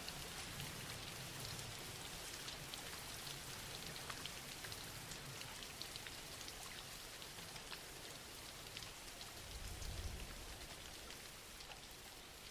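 Soft, steady rainfall, with many small drop ticks over an even hiss. A brief low rumble swells near the end.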